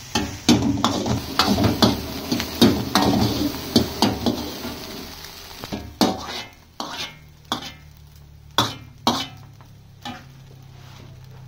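Long steel ladle scraping and clanking against a large metal kadai as egg fried rice is stirred and tossed, with a sizzle underneath. After about six seconds the strokes thin to a few separate clanks as the rice is ladled out.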